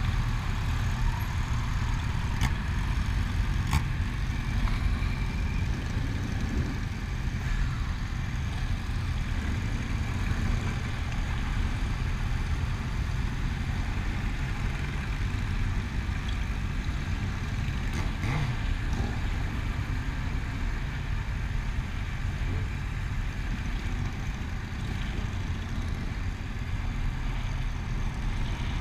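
Steady low rumble of a vehicle engine running, with a few brief clicks about 2, 4 and 18 seconds in.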